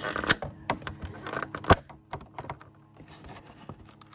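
Cardboard collection box and its packaging being handled as the lid comes off: a run of quick clicks, scrapes and crinkles, the loudest a sharp snap about halfway through, thinning out after that.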